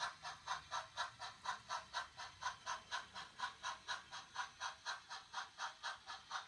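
Model steam locomotive running with a steady, even chuffing of about four hissy puffs a second.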